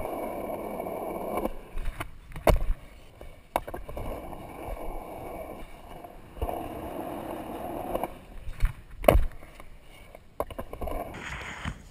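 Skateboard wheels rolling on a concrete skatepark surface, the rumble coming and going in stretches, with several sharp knocks from the board. The loudest knock comes about nine seconds in. The sound is picked up through a waterproof action-camera housing.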